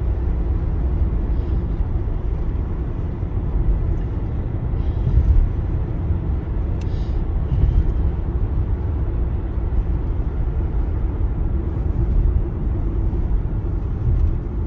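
Car driving along, a steady low rumble of engine and tyre noise.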